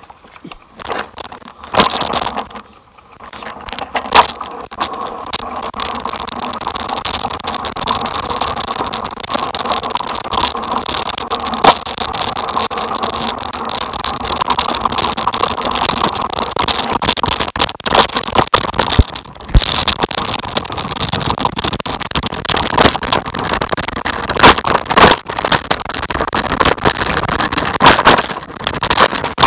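Riding down a rough dirt trail: steady rolling and rattling noise, broken by frequent sharp knocks as the ride jolts over bumps and stones.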